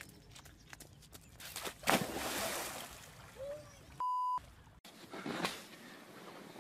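A person dropping into shallow lake water with a loud splash and a second of sloshing. About two seconds later comes a short steady censor bleep.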